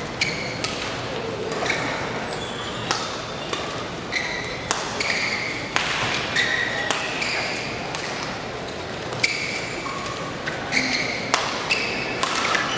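Badminton rally: sharp cracks of rackets striking the shuttlecock, roughly one a second, mixed with short high squeaks of shoes on the court mat, over a steady hum of the hall.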